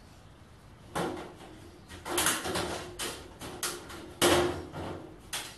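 Light sheet-metal shelving being handled and worked: a string of clanks, knocks and short scraping rattles, the loudest about four seconds in.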